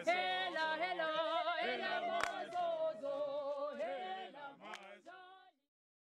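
Group of voices singing unaccompanied in harmony, thinning out and fading away about five seconds in.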